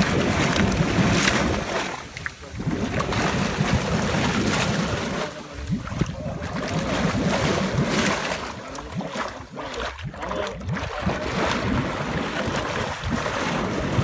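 Hot spring water gushing from a pipe and splashing into a pool: a loud, steady rush of water.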